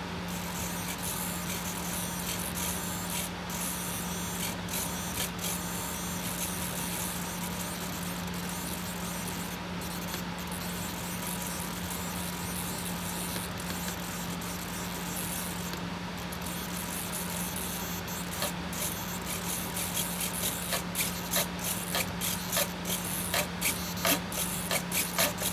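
Small RC helicopter tail servo buzzing steadily as it strains against a binding tail linkage at full rudder travel: the servo limit is set past where the linkage stops. In the last several seconds a run of irregular clicks grows louder and more frequent.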